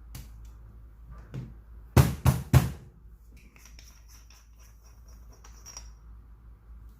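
Three sharp knocks in quick succession, about a third of a second apart, followed by a few seconds of light clicking and handling noises.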